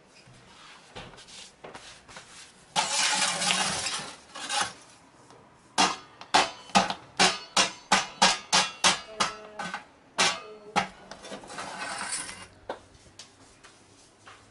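A run of about a dozen sharp metallic knocks and clinks, about two a second, from long metal peels and tools at a wood-fired stone oven. A short scraping rush comes about three seconds in, and a softer one near the end.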